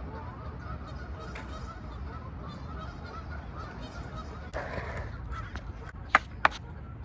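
Geese honking repeatedly in the background. About four and a half seconds in, a rolling rush starts, then two sharp, loud clacks come about a third of a second apart near the end, typical of a skateboard on concrete.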